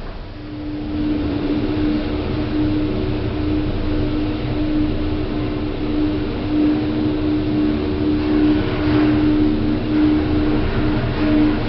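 Otis 2000 lift car travelling between floors: a steady drive hum with a low rumble, building up over the first second as the car sets off.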